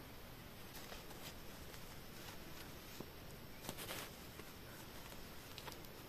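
Quiet background hiss with a few faint, scattered clicks and rustles.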